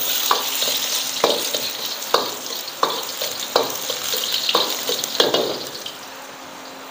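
Sliced garlic and onion sizzling in hot oil in a wok, stirred with a metal ladle that scrapes and knocks against the wok about once a second. The sizzle thins out near the end.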